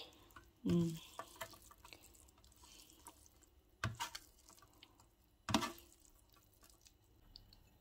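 Dressed spinach being tossed by hand in a stainless-steel tray: soft wet squelches and small clicks, with two sharper knocks about four and five and a half seconds in.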